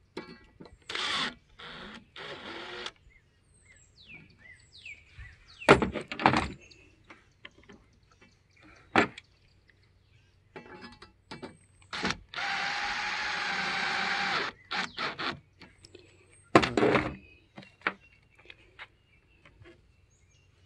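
Scattered clicks and knocks of hands and metal hardware on a pickup's bed-rail track. About halfway through, a small cordless drill-driver motor whirs steadily for about two seconds, driving a screw back into the rack rail.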